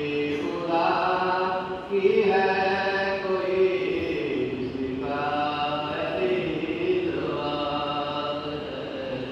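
Noha, a Shia mourning lament, chanted by voice in long held phrases.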